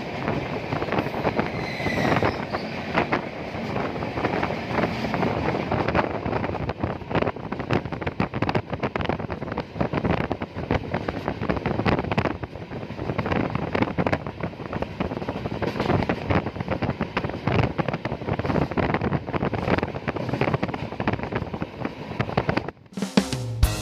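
Moving passenger train heard from on board: steady running noise with many irregular clicks and crackles and wind buffeting the microphone. It cuts off suddenly near the end as music begins.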